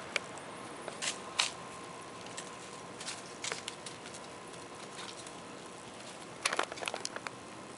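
Scattered light taps and rustles of a kitten scrabbling on concrete pavers among dry leaves and pine needles, with a quick cluster of taps near the end, over a steady outdoor hiss.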